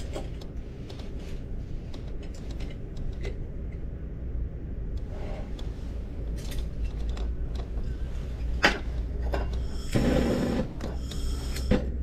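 Light clicks and knocks of parts and tools handled on a steel workbench over a steady low hum. About ten seconds in, a handheld butane brazing torch starts a rushing hiss, which breaks off briefly and resumes, with a sharp click near the end as the torch is lit.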